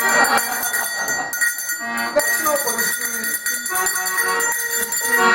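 A set of tuned cowbells ringing out a tune with an accordion playing along. Ringing bell tones hang over short held notes that step from one pitch to the next.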